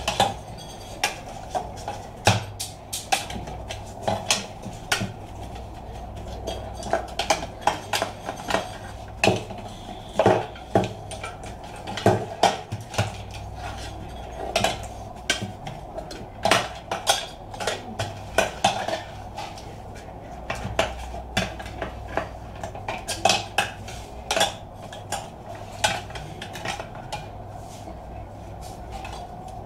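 Screwdriver and metal parts clicking and clinking against the sheet-metal case of a computer power supply as its cooling fan is unscrewed and pulled out: irregular sharp clicks and knocks, one or two a second, over a steady background hum.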